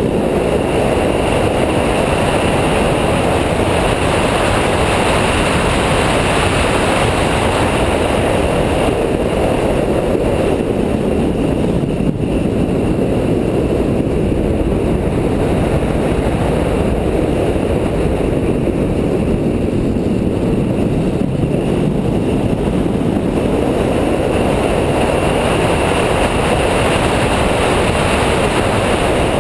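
Track car driven hard on a circuit: engine and road-and-wind noise, swelling and easing as the car accelerates and slows through the corners.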